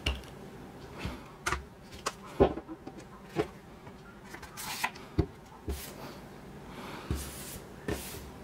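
Hands handling the cardboard packaging of a Blu-ray box set: a string of light taps, clicks and soft thumps as the disc holder, booklet and slipcase are picked up and set down, with a few brief papery swishes of card sliding against card.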